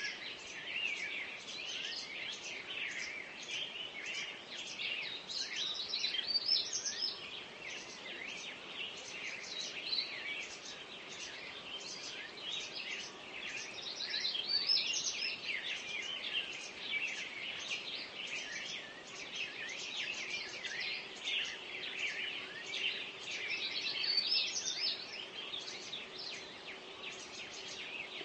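Dawn chorus: many birds singing at once, a dense, unbroken mix of high chirps and trills.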